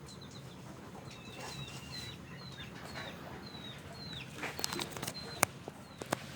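Birds chirping: many short, high, falling peeps in quick succession over a low steady hum. Several sharp clicks come in the second half.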